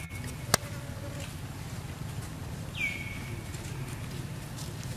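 A high animal call recurring every two to three seconds, each one dropping quickly in pitch and then held briefly, over a steady low rumble. A single sharp click sounds about half a second in.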